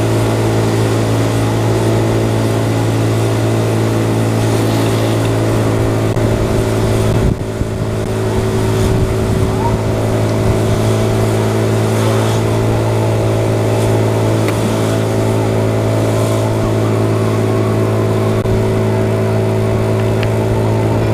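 Small motor scooter engine running at a steady, unchanging pitch under a rushing haze of road noise, with a brief dip in level about seven seconds in.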